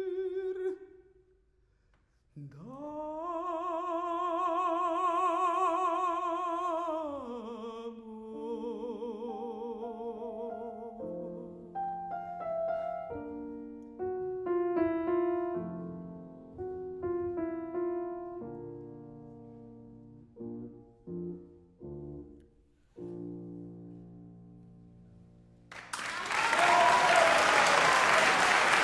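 A tenor voice rises into a long final high note with vibrato, then a grand piano closes the song with a run of chords that thin out and fade. The audience then breaks into loud applause for the last few seconds.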